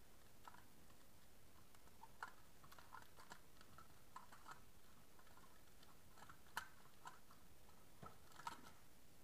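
Faint, scattered small clicks and ticks of a wire and a plastic switch board being handled, with a sharper click about six and a half seconds in.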